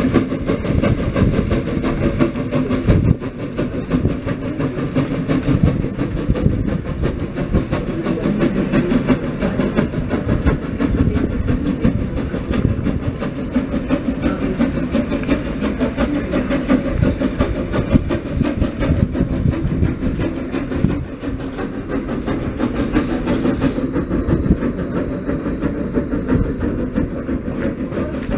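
Small steam locomotive hauling a train of open passenger carriages past, its running mixed with the carriages' wheels rolling over the rails; a loud, continuous sound.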